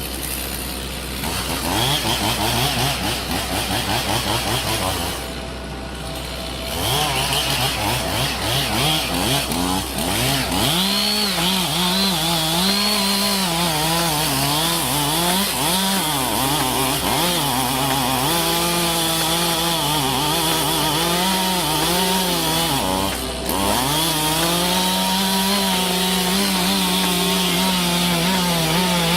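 Petrol chainsaw cutting into wood, its engine pitch rising and sagging as the chain loads in the cut. It eases off briefly about five seconds in, then runs hard again with one short dip later on.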